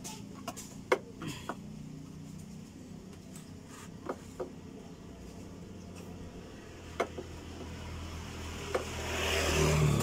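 Sharp clicks and clacks of a fuel-pressure gauge's hose fitting being handled and coupled to a scooter's fuel-pump line, over a low steady hum. Near the end a motor vehicle's rumble and hiss swells up and becomes the loudest sound.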